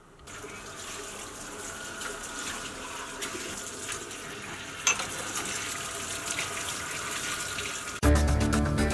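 Kitchen tap running into a sink while dishes are washed: a steady rush of water with a few light clinks and one sharper clink about five seconds in. About eight seconds in, it cuts to music.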